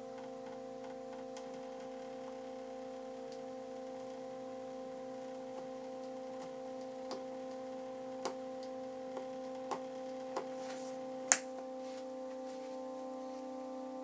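Homemade joystick-driven drawing machine running: a steady pitched electrical hum, with faint irregular ticks and a few clicks as the pen carriage moves, one sharp click about eleven seconds in.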